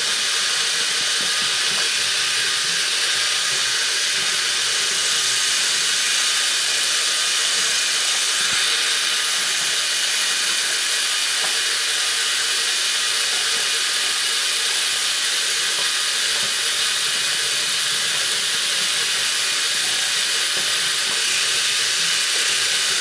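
Steady, even hiss with no distinct events: the self-noise of a Canon Rebel T2i's built-in microphone and preamp with its gain turned up.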